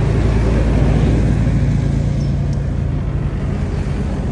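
A motor vehicle's engine running close by, a low steady rumble that swells about a second in and then slowly eases off.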